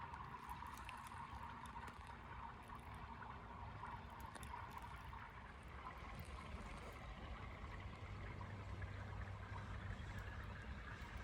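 Small waves lapping and trickling against the edge of ice on a partially frozen lake, a steady faint wash with small high ticks in the first half.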